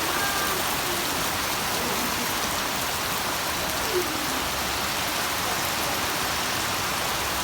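Heavy rain falling steadily, a dense even hiss of rain on surfaces, with one short louder sound about four seconds in.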